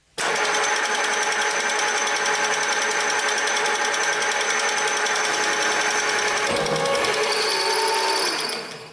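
End mill on a milling machine cutting into the side of a metal tube: a steady machining whine over cutting noise. Its tone shifts about two-thirds through, and it fades out near the end.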